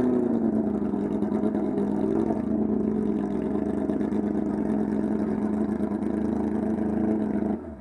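Porsche 911 race car's flat-six engine running at a steady low speed, without revving, then stopping abruptly near the end.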